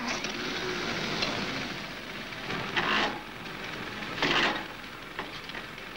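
Hissy old film soundtrack: a steady rushing noise with two louder rasping swells, about three seconds in and again a second later, and a few faint ticks.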